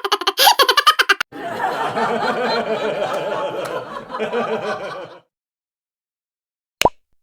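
Stock laughter sound effects played one after another: about a second of quick, clipped chuckling, then about four seconds of a group of people laughing together. The laughter cuts off, and a very short sound comes near the end.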